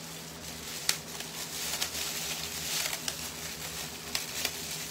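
Craft materials being handled by hand: a soft rustling with a few sharp clicks, over a steady low hum.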